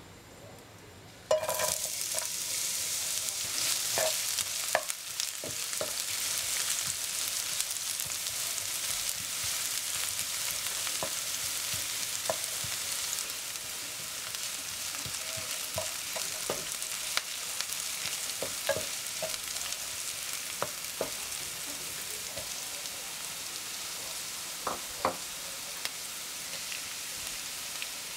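Chopped red onions frying in hot oil in a nonstick frying pan, a steady high sizzle that starts suddenly about a second in, with the scrapes and taps of a wooden spatula stirring them.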